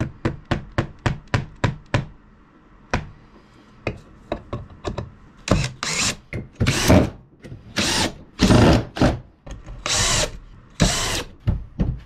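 Power drill countersinking screw holes in a pine board, run in about six short bursts of under a second each in the second half, after a quick run of clicks over the first two seconds.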